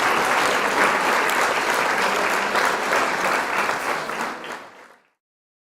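Audience applause with many close-together claps, fading out over about a second and then cutting to silence.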